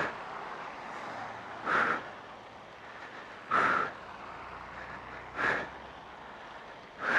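A man breathing hard into a motorcycle helmet, out of breath, with a heavy breath about every two seconds, four times. Under it runs the steady hiss of wet traffic and rain.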